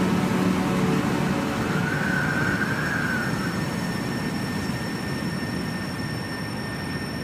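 Ambient noise passage in a dungeon synth recording: an even rushing hiss that slowly fades, with faint held synth tones under it.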